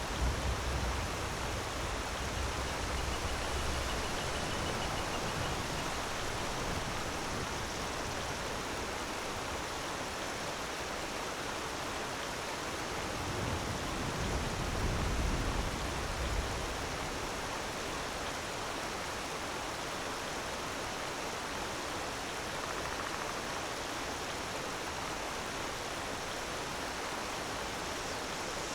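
Waterfall: a steady, dense rush of falling water, with a deeper low rumble swelling up near the start and again about halfway through.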